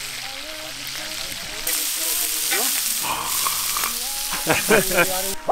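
Meat and vegetables sizzling on a round metal griddle over a wood fire, a steady frying hiss that gets louder about two seconds in. A voice is heard briefly near the end.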